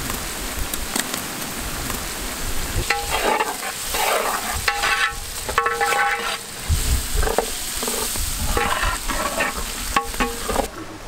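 Chopped onions, green chilies and ginger garlic paste sizzling in hot oil in a large metal pot while a long metal ladle stirs them. From about three seconds in, the ladle scrapes the pot in repeated strokes that ring the metal.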